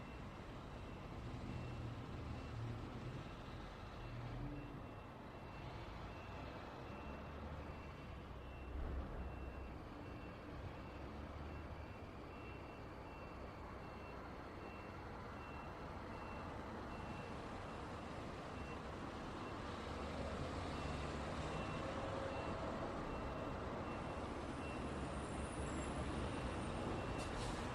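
Road traffic going by: a steady rumble of car and truck engines and tyres, swelling as vehicles pass and growing louder near the end. A faint high beep repeats evenly through it.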